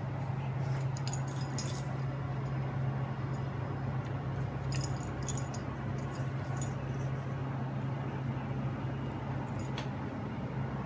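Light metallic clinks and jingles from a puppy's collar and leash clip as it plays with a plush toy, in a few short clusters, over a steady low hum.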